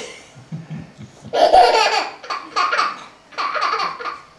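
A toddler laughing hard in several bursts, starting about a second in.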